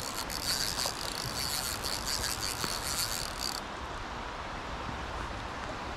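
Spinning reel buzzing with fast, even clicks as line is worked against a hooked salmon, cutting off abruptly about three and a half seconds in. After that only a steady hiss of river water and wind remains.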